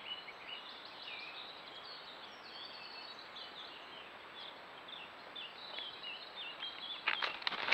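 Songbirds singing in the background, a busy run of short high chirps and trills over faint outdoor hiss. Near the end a bird's wings start flapping loudly in quick strokes.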